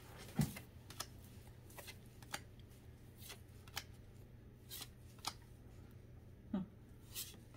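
Pokémon trading cards being flipped through by hand, each card slid off the front of a small stack and tucked behind it: soft, irregular flicks and snaps of card against card, roughly one or two a second.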